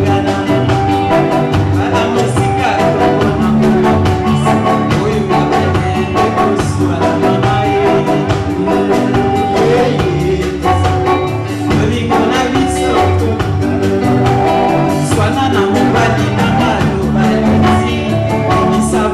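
Live band playing Congolese rumba: a woman singing lead over electric guitars, bass guitar and a drum kit, with a steady beat.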